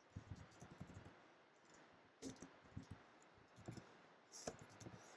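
Faint computer keyboard typing: short clicks of keystrokes in several quick bursts with brief pauses between them.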